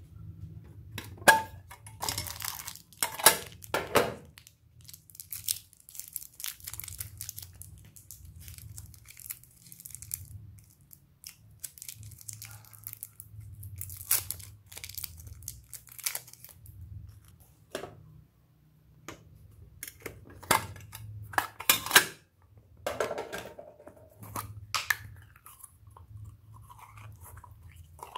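Hands handling plastic slime containers and packaging: scattered sharp clicks and taps, with crinkling and tearing of plastic, over a faint steady low hum.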